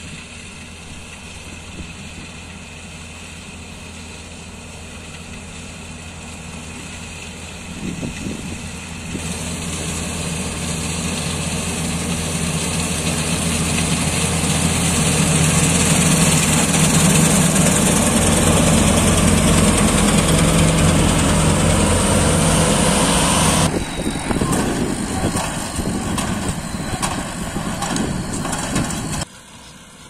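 Deutz-Fahr combine harvester running as it cuts wheat, its engine and machinery hum steady and growing louder as it comes close. About three-quarters of the way through the sound cuts off suddenly to a rougher, uneven machine noise. That noise drops away sharply near the end.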